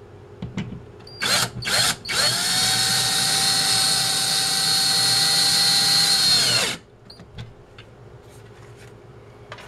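DeWalt 18V cordless drill/driver with a Phillips bit driving a longer screw through a shelf bracket into the wall. Two short blips of the trigger about a second in, then one steady run of about four and a half seconds, the motor whine rising as it spins up and dropping as it stops.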